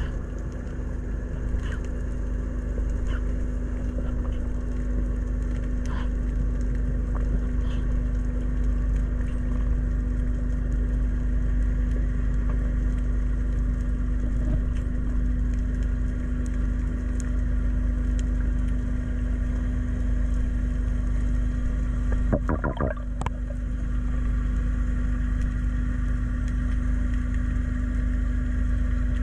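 Underwater hum of a boat engine: a steady low drone with a constant tone. Scattered sharp clicks sound throughout, and a brief wavering burble comes about 22 seconds in.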